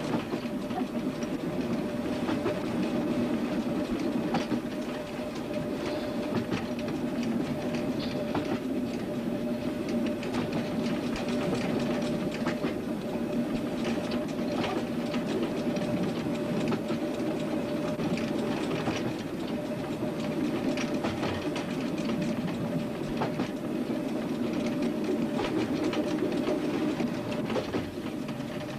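Train running steadily along the track, a continuous rumbling drone with a steady hum, broken by irregular sharp clicks of the wheels over rail joints.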